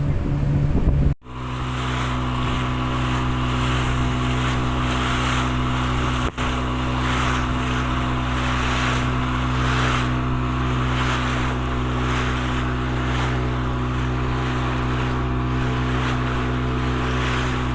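Boat engine running steadily at constant speed, with wash and wind noise over it. The sound drops out sharply about a second in and dips briefly about six seconds in.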